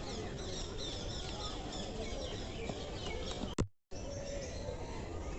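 A dense chorus of many small birds chirping, short high calls overlapping throughout over steady background hiss. About three and a half seconds in there is a sharp click and the sound drops out for a moment before the chirping resumes.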